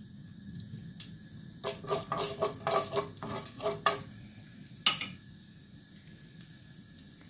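Wooden spatula stirring mustard seeds and urad dal in hot oil in a stainless steel pan, a quick run of scraping strokes with a faint ring from the pan between about one and a half and four seconds in, over a low sizzle of the heating oil. A single sharp knock about five seconds in.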